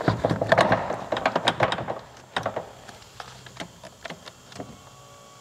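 A car seat being shifted and rocked on the floor of the car to settle it into position, making a rapid clatter of knocks and taps. The clatter is thickest in the first two seconds, then thins to occasional single knocks.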